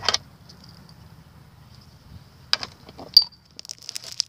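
A few short clicks and clinks of small objects being handled, the sharpest about three seconds in, over a faint steady high hiss.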